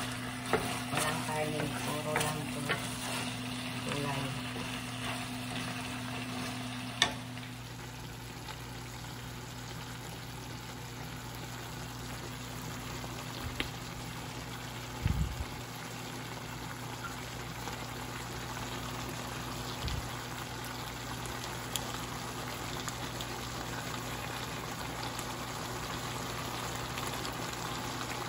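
A cabbage and tofu stir-fry sizzling in a frying pan, with a wooden spatula scraping and tapping the pan for the first several seconds, then steady sizzling over a low hum. There is a single low thump about fifteen seconds in.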